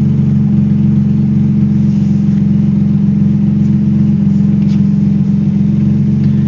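Car engine idling steadily with a deep, even drone, running without a proper exhaust system.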